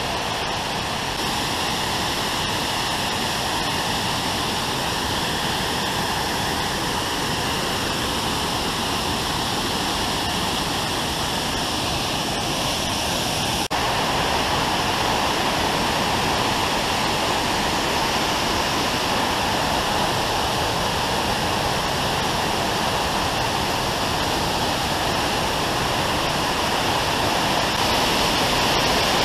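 Waterfall: a steady rush of falling water. There is a brief break about halfway through, after which it is slightly louder.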